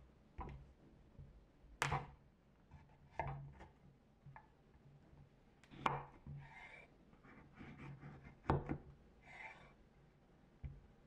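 Kitchen knife cutting a kabocha squash on a wooden cutting board: a handful of sharp knocks of the blade and squash against the board, with two brief scraping sounds of the knife working through the squash.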